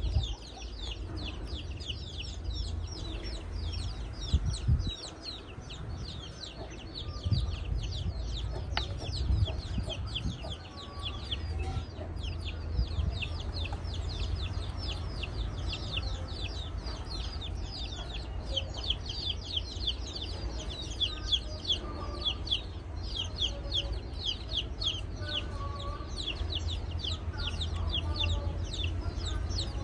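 Birds chirping continuously, many rapid high chirps each falling in pitch, over a steady low rumble.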